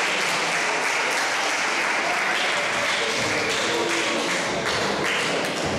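Audience applauding, a steady patter of clapping.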